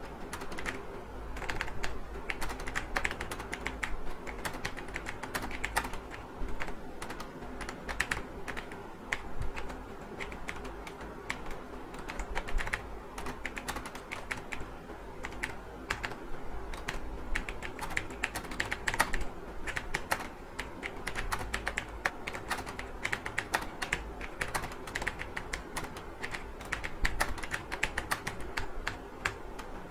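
Continuous fast typing on a computer keyboard: a steady stream of irregular keystroke clicks, several a second.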